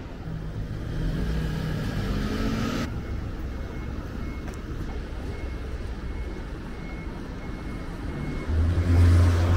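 Street traffic: a vehicle's engine rising in pitch as it accelerates, cutting off abruptly about three seconds in, then steady road noise. Near the end a loud low engine hum from a truck close by.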